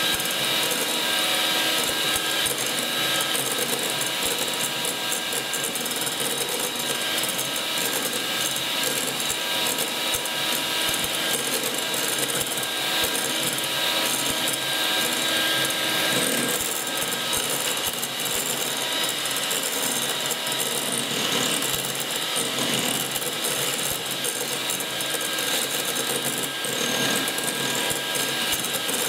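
1980s Gorenje M202 electric hand mixer running steadily, its twin beaters whipping cream in a glass bowl: a constant motor whine over a noisy hiss with a fine, fast ticking rattle.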